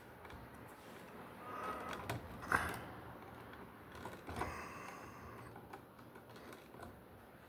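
Small clicks and rustles of hand tools working copper wires in an electrical box, with one sharp snap about two and a half seconds in, the loudest sound.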